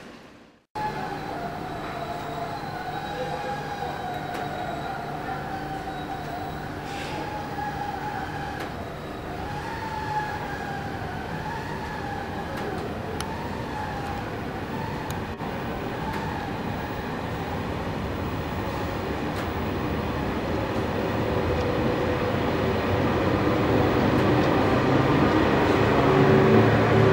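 A TGV high-speed train drawing near: a steady rolling rumble with a wavering high whine on top, growing louder through the last several seconds.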